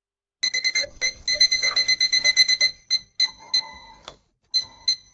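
Electronic beeps at one high pitch. They start about half a second in as a fast run of roughly eight a second, then slow to scattered single beeps with short gaps.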